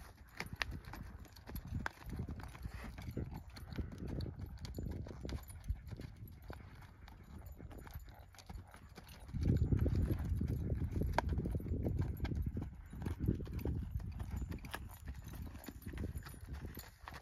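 Arabian horse walking on a sandy, gravelly arena, its hooves clip-clopping in an uneven run of soft steps. About halfway through a louder low rumble sets in under the hoofbeats and then eases off.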